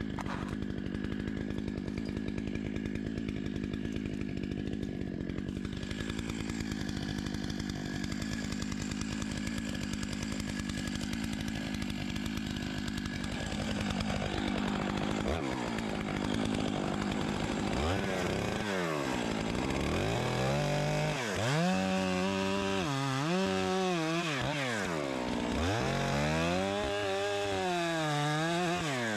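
Chainsaw engine running steadily at first, then from about halfway revving up and dropping back again and again, as when it is loaded in a cut through a log.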